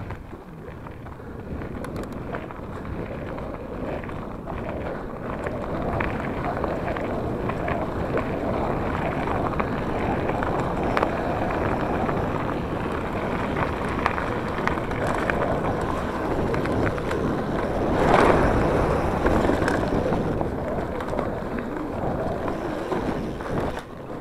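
Mountain bike riding fast down a dirt forest trail: wind buffeting the microphone, tyres rolling on the dirt and the bike rattling over bumps. It grows louder over the first few seconds and is loudest about eighteen seconds in.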